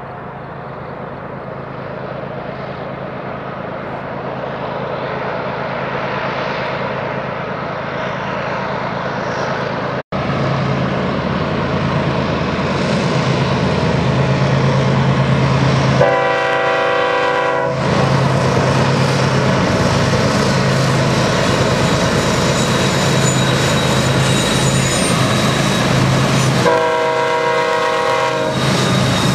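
Diesel freight locomotives running as they approach and pass, the engine drone growing louder over the first third, with a brief break at a cut. Two horn blasts of about two seconds each sound in the second half, about ten seconds apart.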